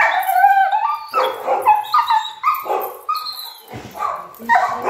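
Dog whining and yelping in a string of wavering, pitched cries, about two a second, protesting having its paw held for nail clipping.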